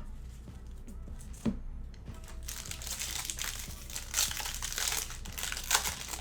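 A trading-card pack's plastic wrapper crinkling as it is handled and torn open, beginning about two and a half seconds in with sharp crackles. It follows a single click a second and a half in.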